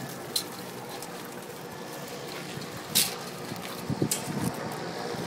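Wire crab trap clattering on a concrete dock: a short clatter about three seconds in, then a few knocks a second later, over a steady background hum.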